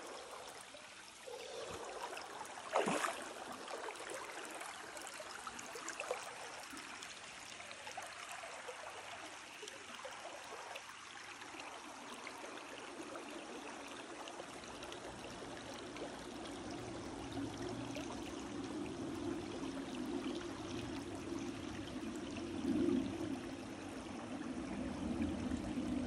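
Shallow creek water running and trickling over rocks and slate ledges, with a brief sharp sound about three seconds in. The flow grows fuller and slightly louder past the middle.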